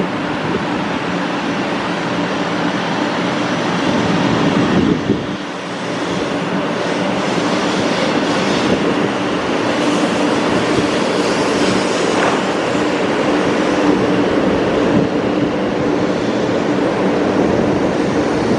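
A 500 series Shinkansen train pulling away from the station platform, its cars rolling past and gathering speed, with steady running noise from wheels and motors; the sound dips briefly about five seconds in, then holds level.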